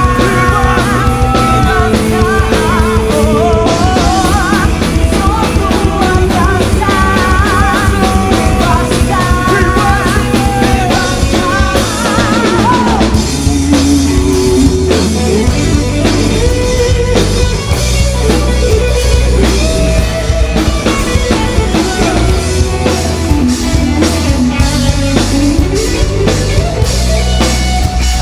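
Live rock band playing an instrumental passage: drum kit, bass and a wavering melodic lead line, busiest in the first half.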